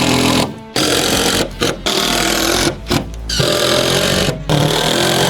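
Power saw cutting lumber in several short bursts, each stopping abruptly.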